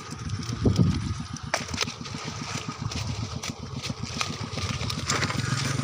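A small engine idling with a rapid, even putter of about ten beats a second, with a few sharp clicks over it. A steadier hum comes in near the end.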